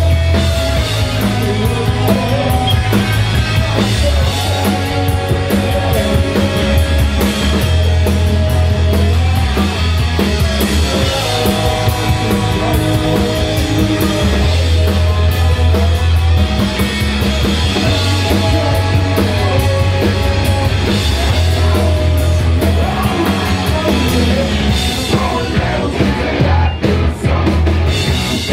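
Punk rock band playing live: electric guitar, bass guitar and drum kit, with a loud, strong bass line.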